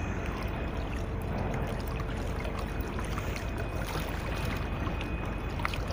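Steady wash of seawater and wind at the shore, with a faint steady hum underneath and a few light clicks.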